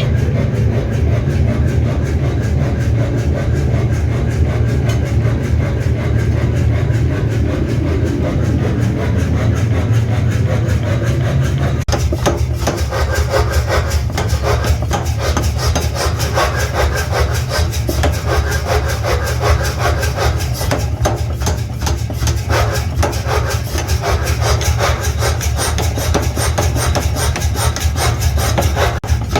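Workshop machinery running with a steady low hum. From about twelve seconds in, it is joined by fast, continuous rasping strokes like filing or grinding on metal.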